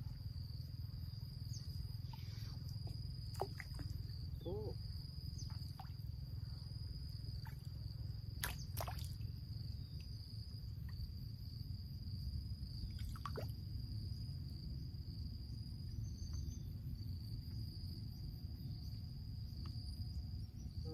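Insects keep up a steady high-pitched drone over a low outdoor rumble, with a few sharp clicks near the middle.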